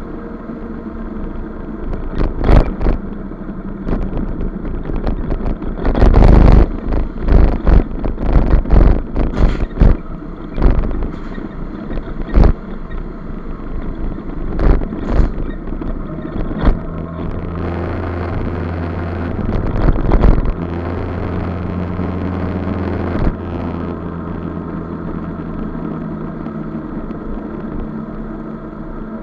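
Motor scooter engine running steadily at road speed, with wind buffeting and a run of sharp thumps and knocks through the first half. A louder low drone sets in for about six seconds past the middle, then eases off.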